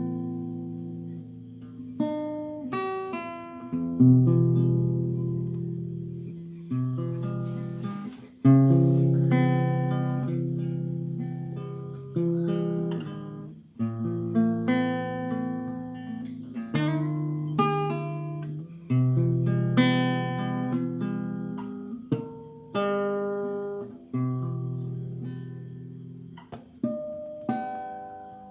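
Solo acoustic guitar played slowly, with chords and plucked notes struck every second or two and left to ring out and fade. There is no singing.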